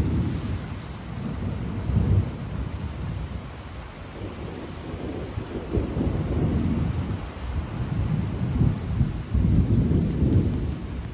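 Thunder rumbling in several rolling swells, starting suddenly at the outset and swelling again near the middle and toward the end, over steady rain.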